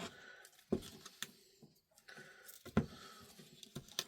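Benchwork handling noise: a few sharp taps and clicks, with light rustling between them, as double-sided sticky tape and a ruler are handled.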